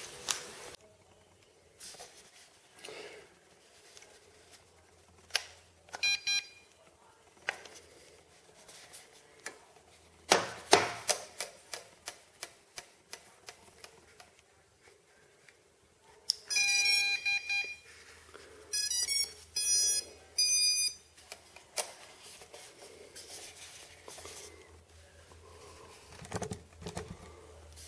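Small clicks and taps of fingers handling wires and an XT30 battery plug. About halfway through come three short runs of loud electronic beeps: the drone's brushless motors sounding the BLHeli_S ESC's startup tones as the battery is connected.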